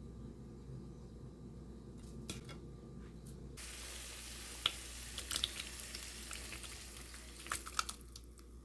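Food sizzling in a frying pan, starting suddenly about three and a half seconds in over a low hum, with a few sharp clicks of a utensil against the pan.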